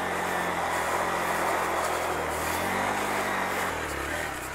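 Hero Xpulse 200 4V's single-cylinder engine running while riding, with a broad rush of wind and road noise over it; the engine pitch rises a little and falls back about halfway through.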